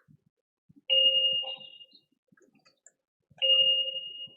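Two chime tones about two and a half seconds apart, each struck sharply and fading away over about a second.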